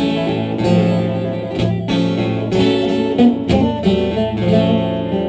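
Acoustic guitar playing a slow, bluesy instrumental phrase of held, ringing notes, with no singing.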